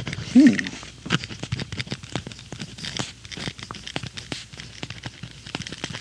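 Centennial mechanical pencil writing on paper: a dense run of quick scratchy strokes of the lead on the page, with a short pitched sound about half a second in.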